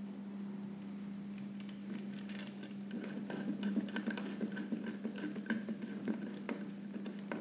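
Small irregular clicks and scrapes of a screwdriver working a wire into the screw terminal of a door-entry kit's power supply, over a steady low hum.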